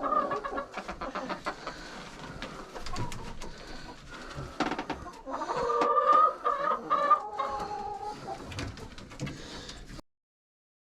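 Domestic hens clucking and calling, loudest about six to seven seconds in.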